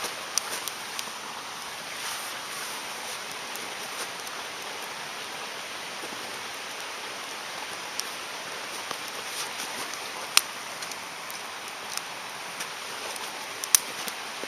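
Campfire burning: a steady hiss with scattered sharp crackles and pops, the loudest about ten seconds in and again near the end.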